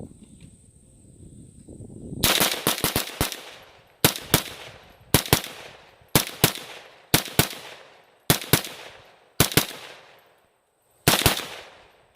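300 Blackout AR-15 rifle firing Wolf 145-grain steel-case rounds semi-automatically: a fast string of about five shots, then shots in quick pairs roughly a second apart, each with a ringing tail. The steel-case ammo cycles through the rifle without a malfunction.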